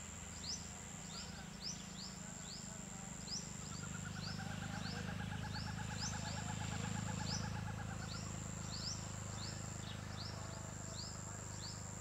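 Woodland bird calls over a steady high insect drone: short, high, down-slurred chirps repeat about twice a second, and from about four to eight seconds in a rapid trill rises and then falls in pitch. A low steady hum runs underneath.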